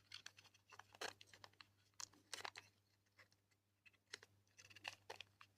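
Faint, irregular clicks and taps of a small servo motor being handled and pressed into place in a robot's casing.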